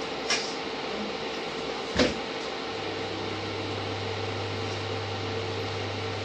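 Steady hum and hiss, with a faint click just after the start and a sharp knock about two seconds in; a deeper low hum joins just before three seconds in.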